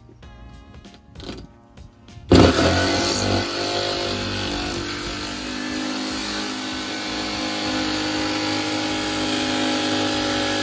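A jigsaw starts about two seconds in and runs steadily, its blade cutting through the camper's thin tin wall skin with styrofoam behind it, then cuts off suddenly at the end. Faint background music plays before the saw starts.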